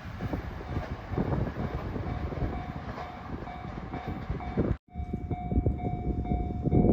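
A 521-series electric train passing over a level crossing, its wheels rumbling and clicking over rail joints. After a sudden cut about two-thirds through, the level crossing warning bell rings in a steady, evenly repeating pattern over continued rumble.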